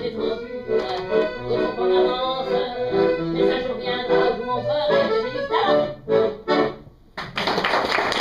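Accordion music playing and ending with a few final chords. About a second later, applause breaks out suddenly near the end.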